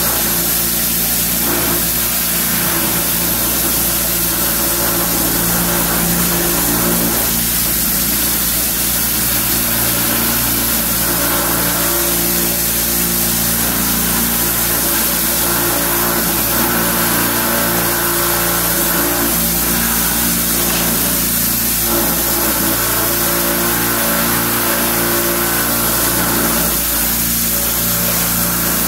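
Pressure washer running steadily, its motor and pump going while the wand sprays a jet of water against a rendered wall, with a continuous hiss of spray.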